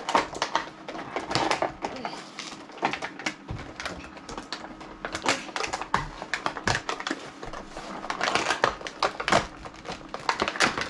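Toy packaging and small plastic parts being handled and unpacked: irregular clicks, taps and rustles, busiest around a second and a half in and again near the end.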